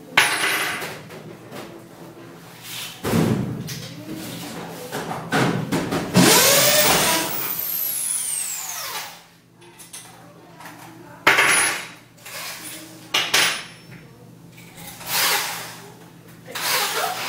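Knocks, bangs and clatter from handling and fitting the parts of a steel modular kitchen cabinet, with a longer, louder stretch in the middle whose pitch rises and then falls away.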